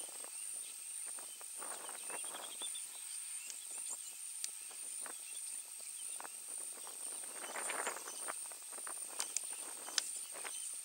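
African elephants moving and shuffling in dry grass and scrub: irregular rustling, soft footfalls and scattered crackles of dry stems and twigs, with bursts of rustling about two seconds in and again around three-quarters through. A steady high-pitched whine runs underneath.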